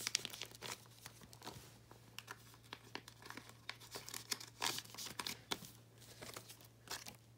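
Clear plastic photocard sleeves and binder pocket pages crinkling and rustling in short, irregular bursts as sleeved photocards are slid into the pockets.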